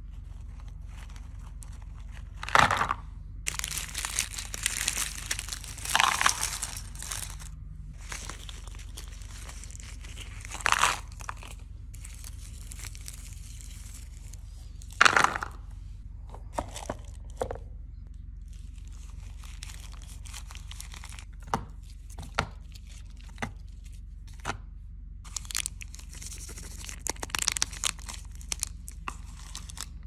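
Sweets being packed into a plastic compartment lunchbox: stretches of crinkling from plastic and foil candy wrappers, broken by several sharp clacks as sweets are set down in the box.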